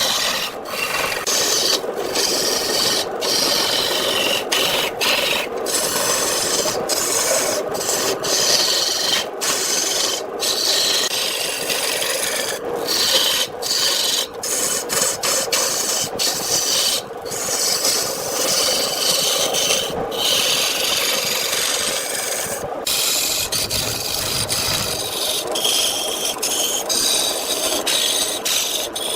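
Wood being cut on a spinning lathe: a steady harsh rasping of the tool against the turning wood, broken by many short gaps as the tool lifts off.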